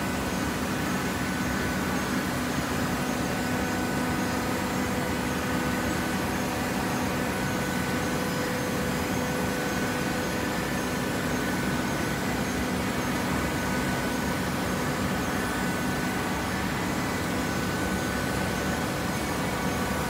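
Hydraulic horizontal baling press running: a steady mechanical hum with several fixed tones over an even hiss, unchanging throughout.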